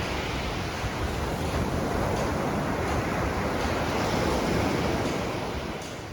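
Ocean surf: a wave washing in, swelling to its loudest about four seconds in and then dying away, with wind buffeting the microphone.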